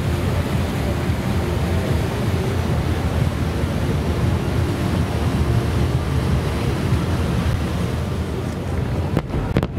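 Steady rushing wind noise on the microphone, strongest in the low end, broken by a sudden brief dropout near the end.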